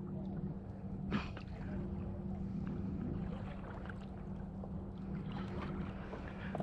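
Wind buffeting the microphone on a kayak, with a steady low hum underneath and a single sharp click about a second in.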